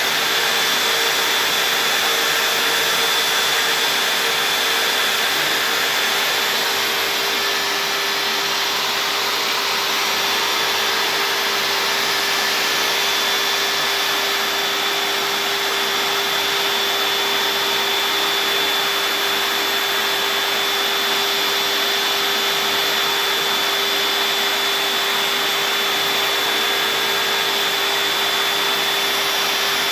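CNC router spindle running with a steady whine as its bit cuts lettering into a white-faced board, along with the steady rush of the dust-extraction suction.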